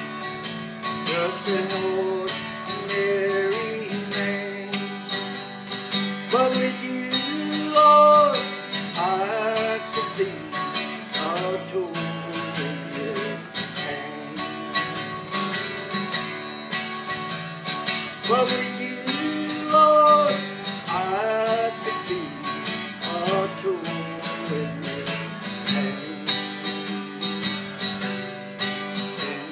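Acoustic guitar played solo in an instrumental passage, steady strummed chords under a melody line that swells loudest twice, about eight and twenty seconds in.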